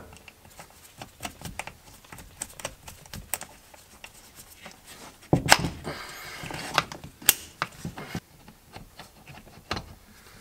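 Irregular clicks, taps and light scrapes of a plastic shifter base and its metal shift-cable linkage being handled and fitted, with louder knocks about five and seven seconds in.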